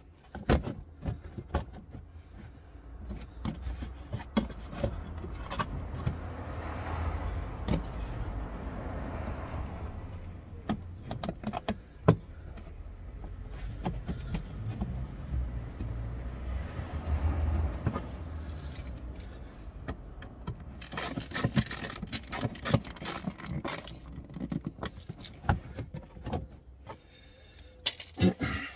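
Scattered clicks, taps and scrapes of hands and fasteners working on a car's wheel arch liner as it is refitted, busiest near the end. A low rumble swells and fades twice in the middle.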